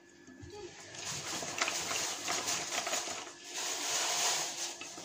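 A whisk beating thick chocolate cake batter in a stainless steel pot: a steady wet swishing and scraping that starts about a second in.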